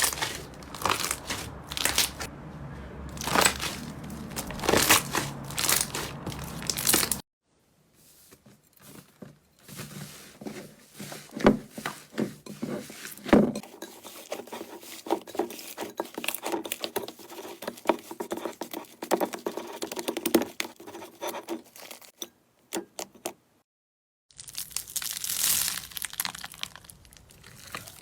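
Slime being squeezed, pressed and worked by hand close to the microphone: dense crackling, popping and squishing. It drops out briefly about seven seconds in and again near the end.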